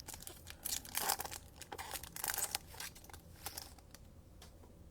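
Trading cards being handled, with a run of short rustles and crinkles in the first three and a half seconds, then quieter.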